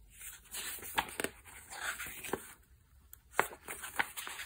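Hands handling a paper booklet and opening it: soft paper rustling and page sounds, with a few sharp clicks or taps.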